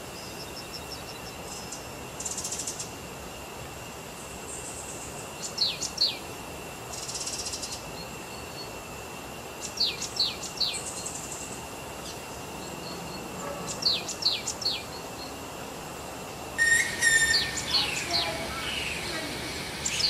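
Forest birdsong: short, high, falling chirps in quick runs of three or four, coming every few seconds over a steady high insect drone. Near the end the chirping grows louder and busier.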